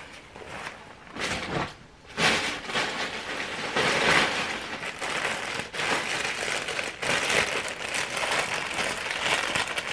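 Clothing and packaging being handled, a continuous crinkling rustle that starts in short bits about a second in and runs on unbroken from about two seconds in.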